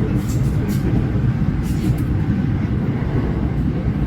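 Commuter train running, heard from inside the carriage: a steady low rumble with a few faint high ticks.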